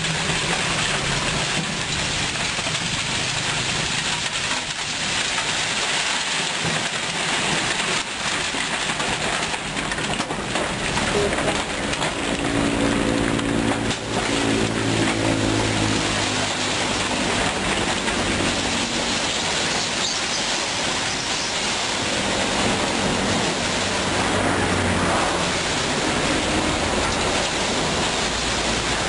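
Light dump truck unloading rocks: a steady hiss and rumble of rock and soil sliding out of the tipped bed, with the truck's engine running to work the hoist. The engine note comes up strongly about twelve seconds in and fades again by about twenty.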